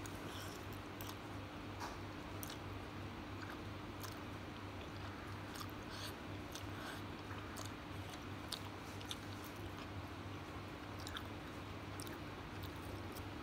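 Close-miked eating of yellow noodles: wet slurping and chewing with many small, sharp mouth clicks, over a steady low hum.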